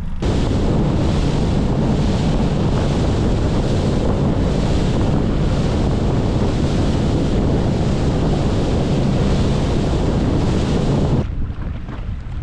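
Wind buffeting the microphone and water rushing past the hull of a small outboard motorboat running fast over open sea. About 11 seconds in, it cuts off suddenly to the much quieter sound of the boat drifting, with water lapping.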